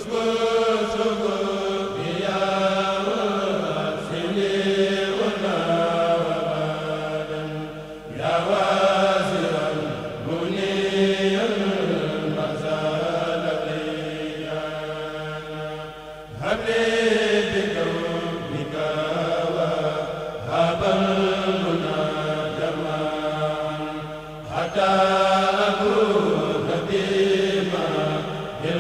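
Male voices of a Mouride kurel chanting a religious poem (khassaid) unaccompanied into microphones, in long sung phrases with a fresh entry about every eight seconds.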